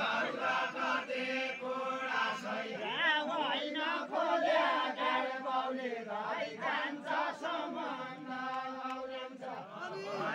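A group of voices singing a deuda, the Nepali folk song of the far west, together in a slow, chant-like melody of long held notes.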